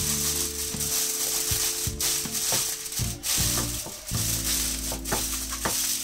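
Aluminium foil crinkling and crackling as it is pressed and folded against the sides of a baking tray, over background music with steady low notes.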